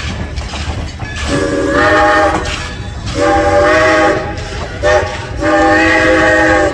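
Baldwin steam locomotive No. 26's chime whistle blowing the grade-crossing signal: two long blasts, a short one, then a long one, over the low rumble of the moving train.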